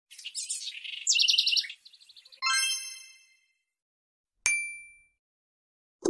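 Intro sound effects: a burst of rapid, high bird-like chirps, then a bright chime at about two and a half seconds that rings out and fades over a second, and a single sharp metallic ding at about four and a half seconds that rings briefly and dies away.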